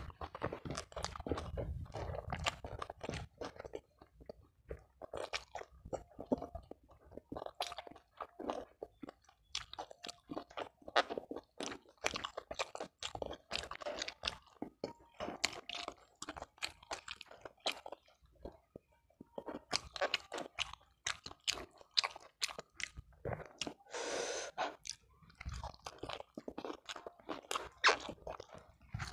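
Close-miked chewing of a mouthful of food, with many short, crisp crunches and wet mouth clicks.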